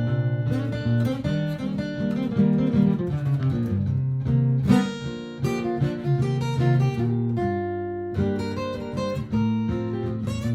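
Martin GPCPA4 acoustic guitar, with picked improvised notes played over a looped guitar backing that has a sustained low line underneath.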